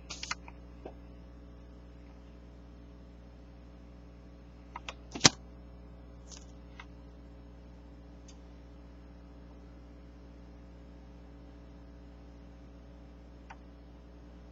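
Steady low electrical hum in a small room, with a few faint clicks and one sharp, loud click about five seconds in: handling noise from the camera or the paper sales circular.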